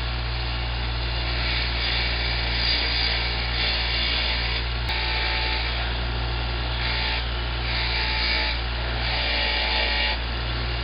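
Motor-driven wire wheel running with a steady hum, with stretches of harsh scratching each time a metal model-locomotive part is pressed against it to scrub off old grime. This happens about five times, each pass lasting half a second to a second and a half.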